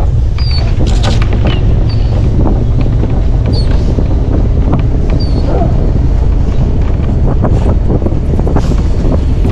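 Wind buffeting a microphone on a moving truck, over the low rumble of the truck driving a rough track, with scattered clicks and knocks and a few short high squeaks.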